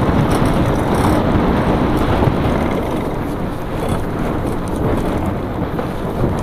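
Steady wind buffeting the microphone, mixed with the rumble of a rigid-fork mountain bike's 26-inch Schwalbe Black Jack knobby tyres rolling over a dirt and gravel trail.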